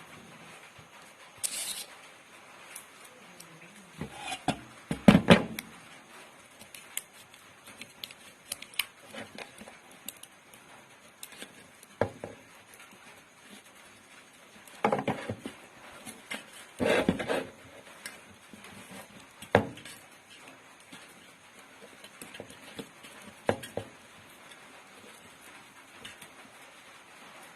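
Scattered clicks, rustles and metallic knocks of hand work on a grinder motor's stator, as coil windings of copper wire are pressed into its slots. A few louder sharp knocks stand out, the loudest about five seconds in.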